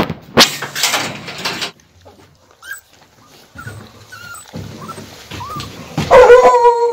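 Puppies whimpering: a few faint high squeaks through the middle, then one loud drawn-out whine about six seconds in. A rustling noise fills the first second or two.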